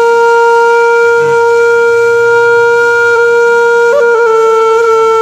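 Background music: a wind instrument holds one long steady note, with a brief wavering turn in pitch about four seconds in.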